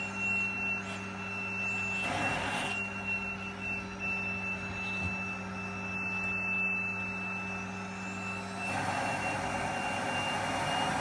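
Vacuum cleaner running steadily with a high motor whine, its airflow rushing louder briefly about two seconds in and again from about nine seconds on.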